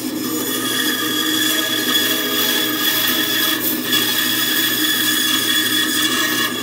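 Bandsaw blade cutting through a small wooden block to clear the waste for a lap joint: a steady high whine from the cut over the saw's running hum.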